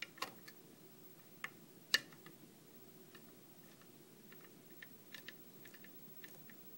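Small metallic clicks and ticks of a hook pick working the pins of a brass Mallin pin-tumbler cylinder held under tension in a deep false set. A few sharper clicks come in the first two seconds, then a run of faint ticks about five to six and a half seconds in.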